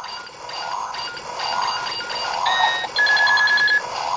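Go-Onger Rocket Booster toy dagger, fitted to the Wing Trigger as the Wing Booster, playing its electronic powering-up sound effect through its small speaker. It pulses about twice a second, then holds a two-tone beep and ends in a quick string of beeps over a steady tone.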